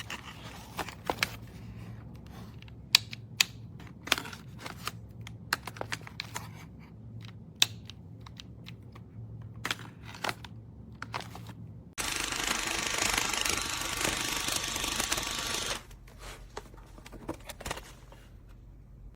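Irregular light clicks and knocks of handling noise over a low steady hum, with a burst of loud even hiss lasting about four seconds a little after halfway.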